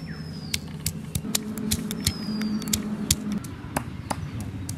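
Stone pestle pounding and crushing garlic cloves on a flat stone grinding slab (shil-nora): a rapid, uneven run of sharp knocks, about four a second.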